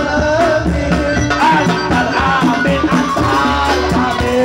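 Live sholawat (Islamic devotional song) music played loud: a sung melody over a steady bass and busy hand percussion.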